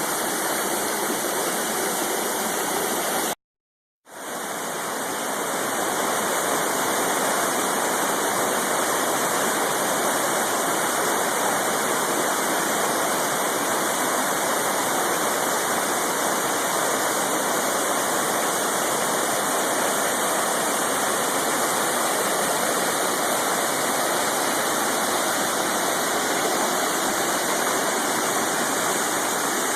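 Waterfall pouring: a loud, steady rush of falling water. It cuts out for about half a second around three seconds in, then fades back up.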